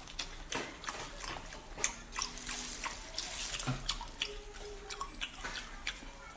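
Close-miked wet eating sounds of spicy seafood: irregular smacks, clicks and slurps.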